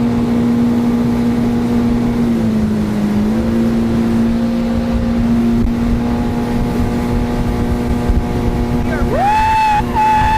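Yamaha AR190 jet boat's engine running at speed under steady throttle, a constant drone over rushing wind and water, with its pitch sagging briefly a few seconds in before settling back. Near the end a person lets out a long high "woo".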